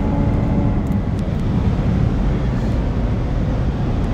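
Steady road, tyre and wind noise with a low engine drone, heard from inside a car's cabin at autobahn cruising speed.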